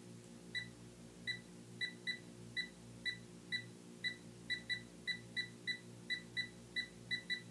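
TLD.500 hydrogen leak detector beeping in short, high-pitched beeps as it picks up hydrogen from a 3.0 g/yr calibrated test leak. The beeps come once or twice a second at first and speed up to about four a second near the end, a stronger response as the detector senses more gas.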